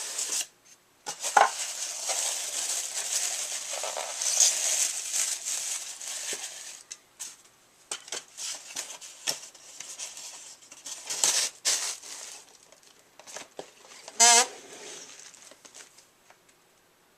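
Cardboard and plastic packaging of die-cast cars being handled and opened: crinkling and rustling with scattered clicks and knocks, and a brief squeak near the end.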